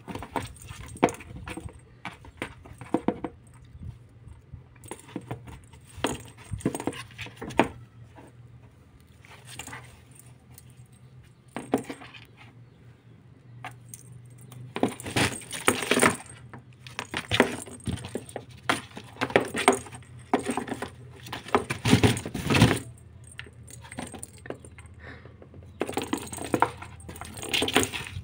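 A kitten pouncing on and batting a small ball around the floor of a cardboard box: irregular scratches and scrapes of claws on cardboard, with clinking rattles from the ball, coming in busier flurries now and then.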